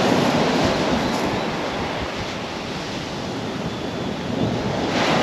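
Heavy surf breaking and washing on a shingle beach, with strong onshore wind buffeting the microphone. The noise eases slightly midway, then swells again near the end as another wave comes in.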